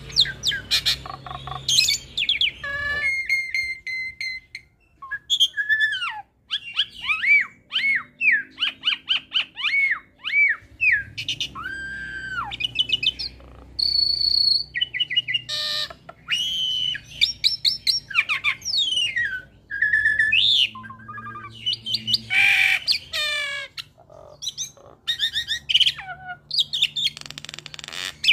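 Hybrid myna (Asian pied starling × Nias hill myna) singing a fast, varied song: strings of short whistled notes and arched up-and-down slurs, a few longer held whistles, and a couple of harsh rasping calls in the second half.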